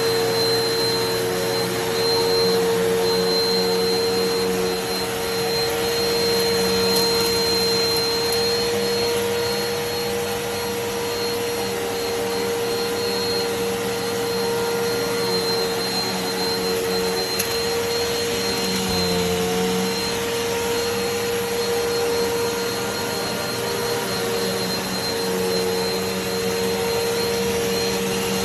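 Eureka PowerSpeed NEU181A bagless upright vacuum cleaner running steadily with a high motor whine, its pitch dipping briefly once about two-thirds of the way in.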